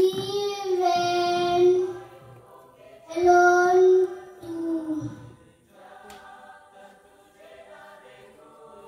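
A young girl singing solo without accompaniment: two long, loud held notes, then softer singing from about six seconds in.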